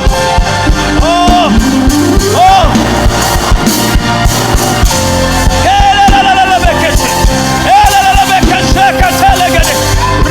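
Loud live church band music with drums keeping a steady beat and sustained bass and keyboard notes, and a voice singing or chanting in short, wavering repeated notes over it.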